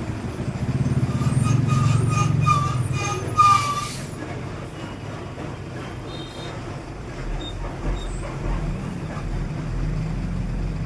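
Hitachi inverter air conditioner compressor starting: a low hum with a faint whine swells for about three seconds, then drops away as the compressor cuts out again. This is the fault of a compressor that starts and then shuts off after only a moment's run.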